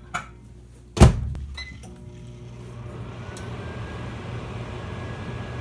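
Microwave oven door shut with a loud thump about a second in, followed by a short keypad beep, then the oven running with a steady hum that builds louder over the next couple of seconds.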